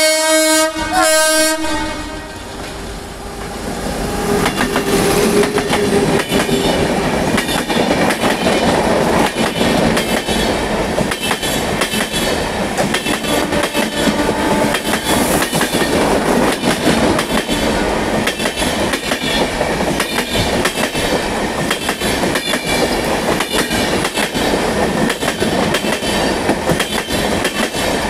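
A WAG9 electric locomotive's horn sounds in two blasts in the first two seconds. The passenger train then runs past close by at speed, with a loud rush and a rapid clickety-clack of the coaches' wheels over the rail joints.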